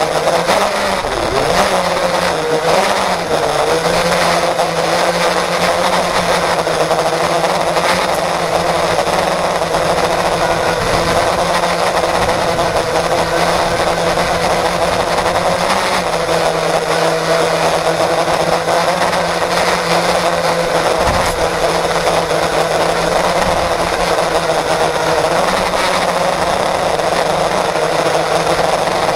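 FPV quadcopter's brushless motors and propellers whining, heard loudly from an action camera mounted on the quad's frame. The pitch wavers with throttle changes in the first few seconds, then holds fairly steady.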